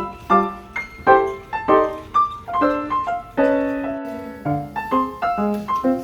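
Background music: a light, bouncy piano tune played in quick detached notes.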